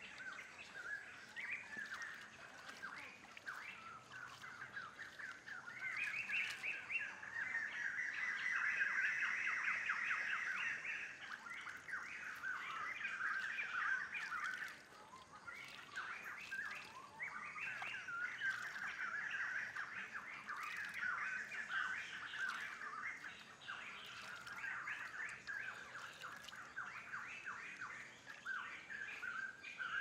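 Birds chirping and trilling in a dense, continuous forest chorus, louder in two stretches from about 6 to 14 seconds in and from about 18 to 23 seconds in.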